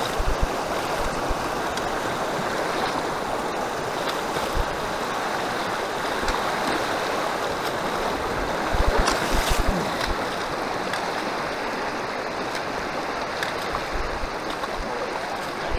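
Mountain creek rushing steadily as a hiker wades through deep water, legs splashing, with a louder burst of splashing about nine seconds in.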